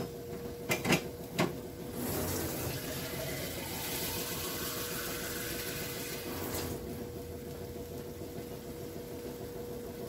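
Kitchen tap running into a glass to fill it with water, after two clinks in the first second or so; the rush of water is louder for the first few seconds, then continues softer.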